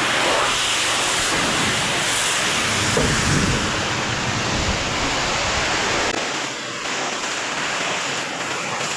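Pressure washer spraying: a steady hiss of high-pressure water. The low rumble underneath drops away about six seconds in.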